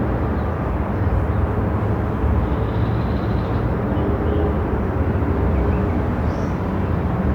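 Moving car's road and engine noise: a steady, even low rumble.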